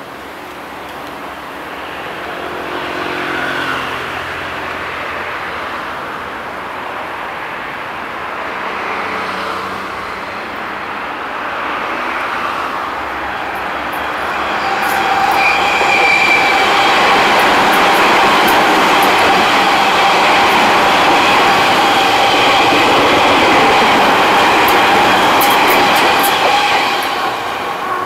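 Tobu 50000-series (50090-type) electric commuter train approaching and running past without stopping. The sound builds through the first half, then is loudest and steady for about twelve seconds as the cars pass close, with a steady whine and sharp clicks from the wheels on the rail. It drops off sharply near the end.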